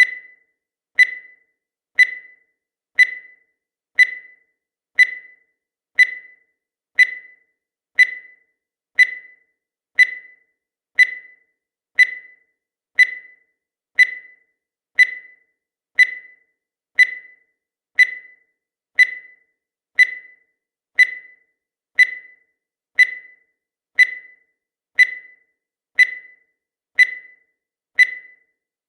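Countdown timer ticking: a short, high beep-like tick once every second, evenly spaced.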